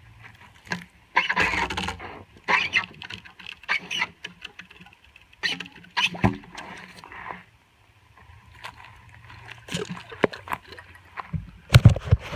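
Homemade CPVC hand-pump rod with a car-tire rubber piston being pulled up out of a 1.5-inch black steel well pipe: irregular scraping and rubbing strokes with wet patter, and a couple of louder knocks near the end.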